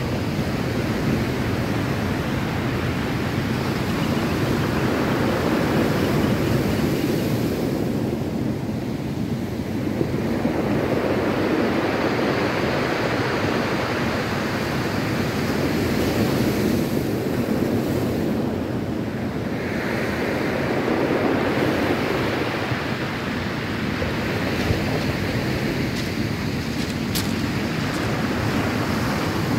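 Ocean surf breaking and washing up a pebble beach, a steady rush that surges louder every five seconds or so.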